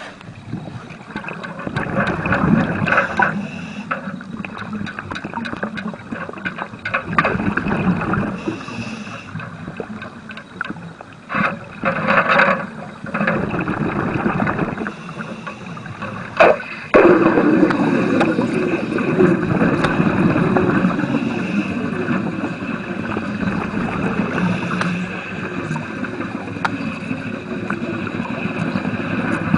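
Underwater welding: a loud, uneven rushing and bubbling noise that comes in surges, with a sharp crack about sixteen seconds in, after which it runs more steadily.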